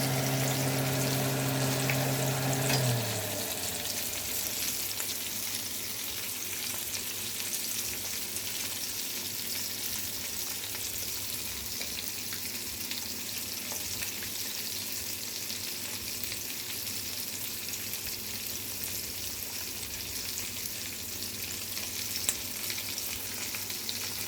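Shrimp and fish frying in hot sunflower oil, a steady sizzle with scattered small crackles. A steady low hum sounds over it at first and cuts off about three seconds in.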